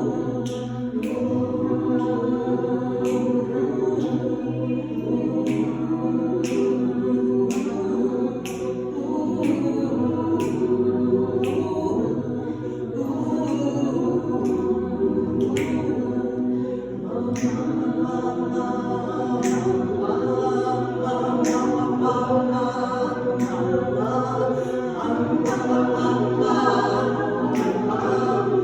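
A choir singing unaccompanied, several voices holding sustained chords that move slowly from one to the next.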